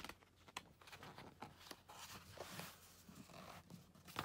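A book page being handled and turned: faint paper rustling with a few soft clicks, and a brief sharper tick near the end.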